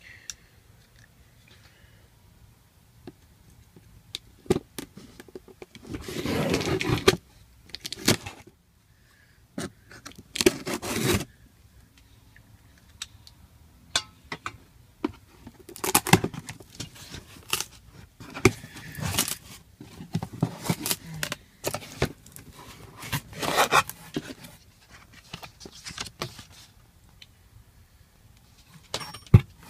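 Intermittent scraping, clinking and rustling of parts being handled by hand, with about five louder bursts lasting around a second each.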